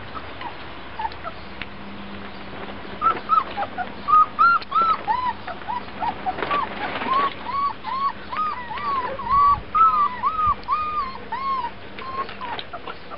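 Three-week-old puppies squeaking and whining while they nurse on their mother: a run of short, arching high cries, about three a second, starting about three seconds in and dying away near the end.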